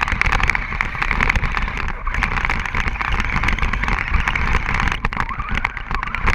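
Radio-controlled car driving fast through snow, with a steady rush and a dense crackle of snow spray hitting the car and the camera.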